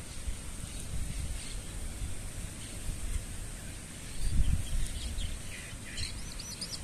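Birds singing over a low rumble of handling noise while a gloved hand sifts through loose soil. There is a heavier thump about four seconds in, and a quick run of high chirps near the end.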